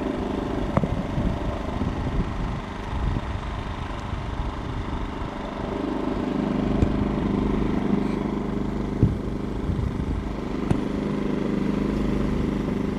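An engine running steadily with a low hum, and a few light clicks over it.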